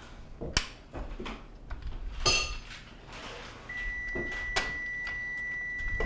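Sharp plastic clicks and snaps as the old adjuster arm and wheel of a dishwasher's upper rack are pried off their retaining tabs; the loudest snap, about two seconds in, rings briefly. A steady high-pitched tone starts a little past halfway through and holds.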